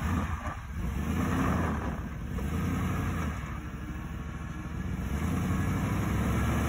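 Lifted Chevrolet Suburban's engine running at low revs as the truck works against a dirt mound, a steady low rumble that dips slightly midway and grows a little louder in the second half.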